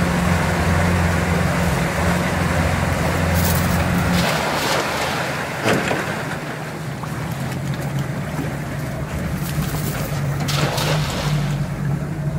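Pontoon boat's outboard motor running under a steady rush of water and wind noise. The engine hum fades about four seconds in and comes back near the end. A few short knocks sound in between.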